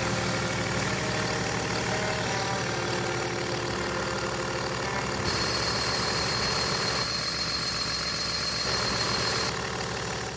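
Car engine idling steadily. About five seconds in, a loud high hiss with a quick pulsing beat joins it for about four seconds, then cuts off suddenly.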